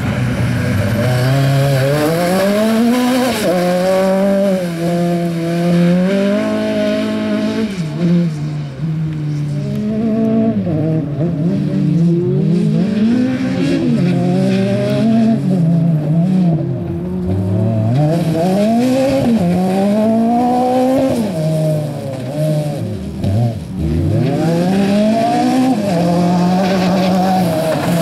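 Autocross car's engine revving hard, its pitch climbing and dropping again and again as it shifts gears and comes off the throttle.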